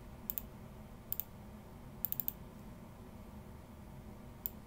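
Computer mouse clicking: two quick pairs of clicks, then four in a row about two seconds in and a single click near the end, over a faint steady low hum.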